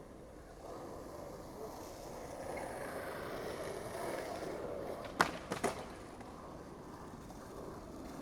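Skateboard wheels rolling on a skate park's concrete, growing louder over the first few seconds. A little after five seconds in come three sharp clacks of the board in quick succession, and then the rolling goes on more quietly.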